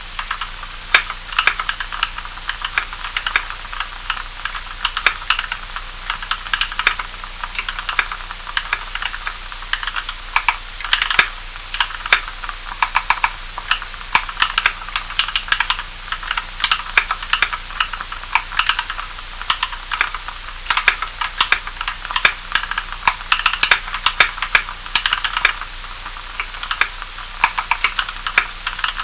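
Typing on a custom EO87 mechanical keyboard fitted with Kailh Cream switches (75 g springs, switch films, lubed with Krytox 105 oil): a continuous, uneven run of keystroke clicks over a steady hiss.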